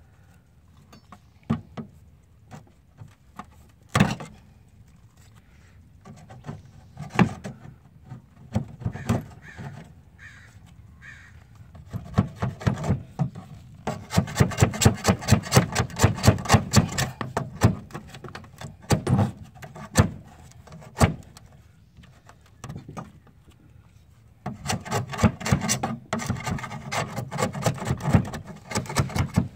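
Steel pry bar scraping and chipping layers of old sealant off a metal plumbing vent flashing on a concrete tile roof. Scattered single knocks and scrapes give way to two bursts of rapid strokes, one in the middle and one near the end.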